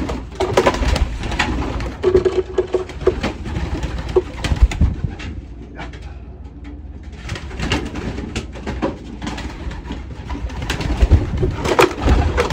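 Racing pigeons cooing in the loft, with a low coo about two seconds in, among frequent short knocks and rustles from the birds being handled.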